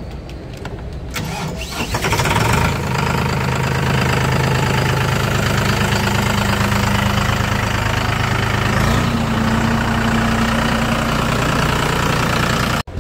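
VST Zetor 5011 PRO tractor's three-cylinder diesel engine started on the key. The starter cranks briefly about a second and a half in, and the engine catches within a second and settles into a steady idle. About nine seconds in, the engine speed rises slightly.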